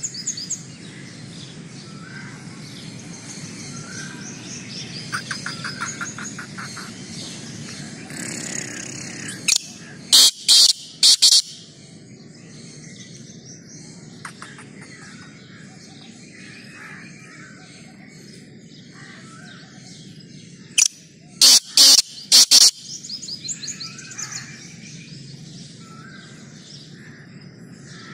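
Black francolin calling twice, each call a quick run of four or five loud notes lasting about a second and a half, the first about ten seconds in and the second about twenty-one seconds in. Small birds chirp and trill steadily underneath.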